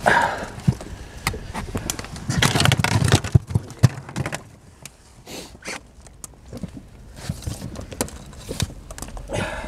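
Handling noise in an inflatable boat: scattered knocks, clicks and rubbing, with a louder stretch of rustling about two and a half seconds in.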